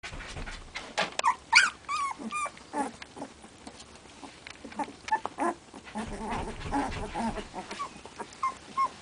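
Young puppies, about 16 days old, whimpering and squealing as they tussle, with a run of high squeals in the first three seconds and a few short squeaks near the end.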